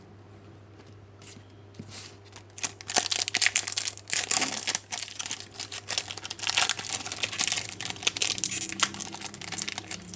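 A trading-card pack wrapper crinkling and crackling as it is torn open and pulled apart by hand, starting about two and a half seconds in, over a faint steady low hum.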